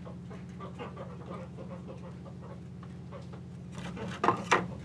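A steady low hum with faint scratching from a marker writing on a wooden birdhouse roof panel, then two sharp knocks about four seconds in as the wooden panel is handled.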